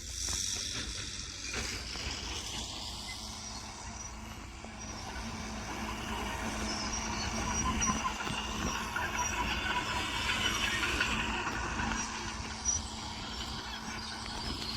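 Crawler bulldozer's diesel engine running with a steady hum, its steel tracks clanking and squeaking, growing louder about halfway through.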